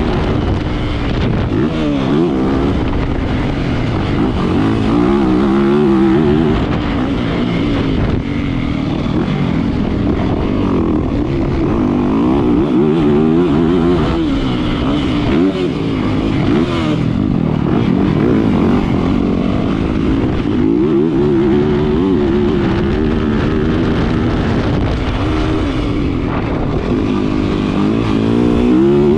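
Yamaha 450 motocross bike's four-stroke single-cylinder engine, heard close from on board, revving up hard and dropping back over and over as the rider opens and closes the throttle around the track.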